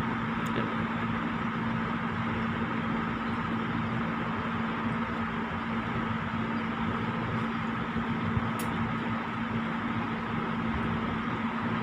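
A steady machine hum with a constant low tone and a fainter higher whine over an even hiss, and a couple of faint clicks.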